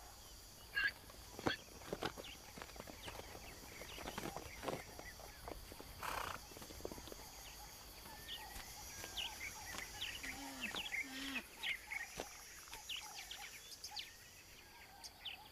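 Wildlife ambience: a steady high insect drone with scattered short bird chirps through the second half and a few knocks and rustles in the first half.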